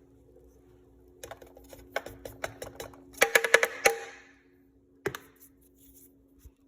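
Plastic scoop clicking and tapping against the tub and the blender jar as a second scoop of protein powder is packed and tipped in: a run of quick light taps that grows into a loud rattling cluster around three to four seconds in, then one more knock a second later.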